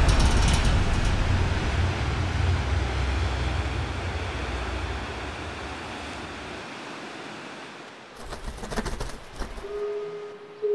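Heavy ocean surf breaking on rocks: a deep, rumbling roar of waves that slowly fades over several seconds, followed by a few shorter splashes.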